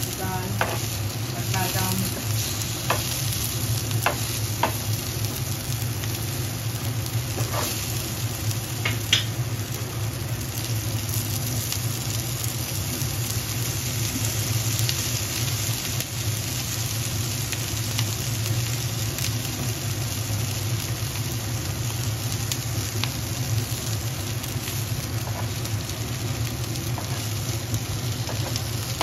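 Shami kababs sizzling as they shallow-fry in oil on an iron tawa, with a metal spatula scraping and clicking against the pan a few times in the first nine seconds or so. A steady low hum runs underneath.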